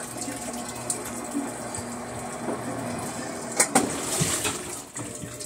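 Electrolux LTR 10 top-loading washing machine filling with water: a steady hiss of inflowing water over a low hum. Two sharp clicks come about three and a half seconds in. The knocking fault it is known for is not heard yet.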